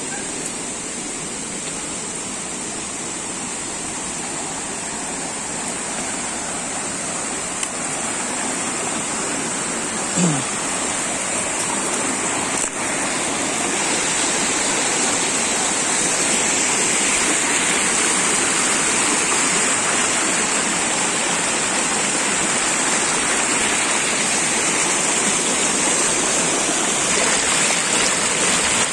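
Small rocky stream splashing and cascading over boulders, a steady rush of water that grows louder partway through. A short downward-gliding tone stands out briefly about ten seconds in.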